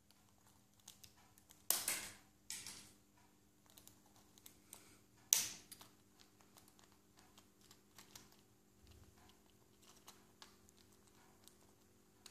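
Alexandrine parakeet chewing a plastic pen apart with its beak: a run of small clicks and crunches, with louder cracks about two seconds in and again a little past five seconds.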